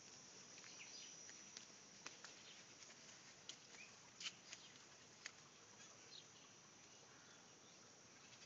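Faint garden ambience: scattered short bird chirps and clicks over a thin, steady high-pitched tone.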